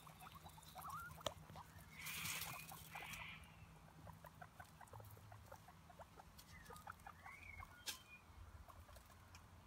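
Guinea pigs foraging in dry wood-chip mulch: faint scattered rustling and ticking with small short squeaks, and a brief louder rustle about two seconds in.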